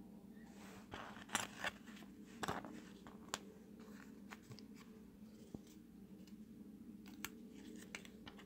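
Small scissors snipping a decal sheet, a few short crisp cuts with scattered light clicks of small plastic toy parts, over a faint steady low hum.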